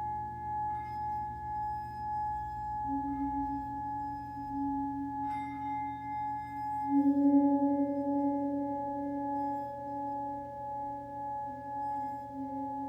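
Singing bowls and a large gong sound together: steady ringing bowl tones hang over a low gong wash. About three seconds in a deeper, wavering tone joins them and swells to its loudest around seven seconds, then slowly fades.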